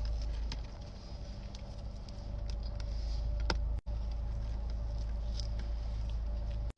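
Close-up eating sounds of someone chewing donuts, with small irregular clicks and crackles over a steady low hum. The sound cuts out abruptly twice.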